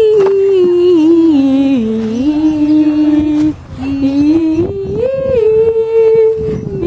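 A boy singing loudly in long, drawn-out notes that step up and down in pitch, with a short break about three and a half seconds in.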